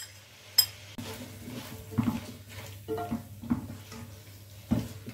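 Silicone spatula stirring chicken and spices around an aluminium karahi, giving irregular soft thuds and scrapes about once a second, with a sharp click near the start. A low steady hum runs underneath.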